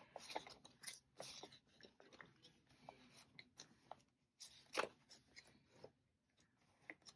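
Faint rustling and crinkling of paper cash and envelopes being handled, a scatter of short soft ticks, the loudest a little before five seconds in.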